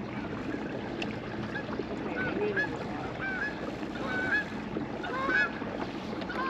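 Geese honking: a series of short calls, about one or two a second, over a steady background hiss.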